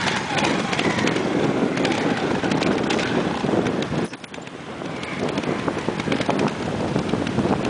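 Trials motorcycle engine running and being blipped as the bike picks its way over rocks, with the throttle closed for about a second near the middle before it picks up again.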